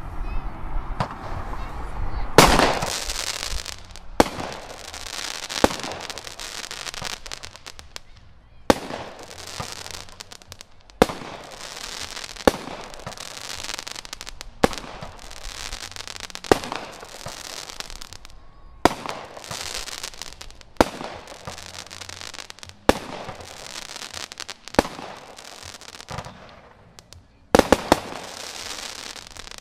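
Crackle Jack multi-shot firework firing about a dozen shots, one every two seconds or so. Each shot is a sharp bang followed by a dense crackling burst that lasts until the next, and the last two bangs come in quick succession near the end.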